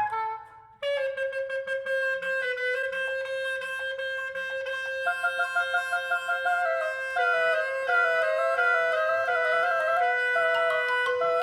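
Recorded music played over Elfton Vegas II hi-fi loudspeakers: after a short dip in level just after the start, a long held note comes in with a woodwind-like melody moving above it.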